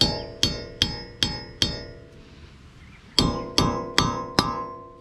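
Hammer driving a dull chisel against the front wheel hub's metal dust cap to knock it out: sharp metal blows that ring, five in quick succession, a pause, then four more about three seconds in.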